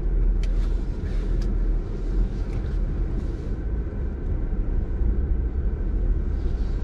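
Jeep Wrangler's engine running with a steady low rumble, with a few light clicks in the first second and a half.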